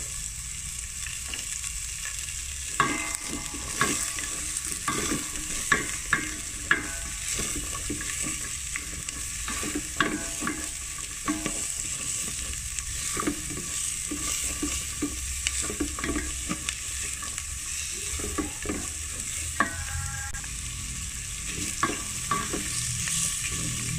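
Diced carrots and green beans sizzling as they sauté in a stainless steel pot, stirred with a spatula that scrapes and knocks against the pot at irregular intervals over a steady frying hiss.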